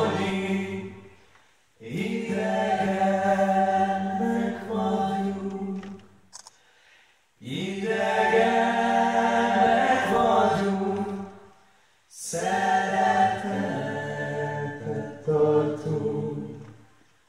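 A mixed group of men and women singing a Hungarian folk song in harmony, a cappella, into stage microphones. The voices hold long phrases separated by short breaths: a phrase ends about a second in, then three more follow.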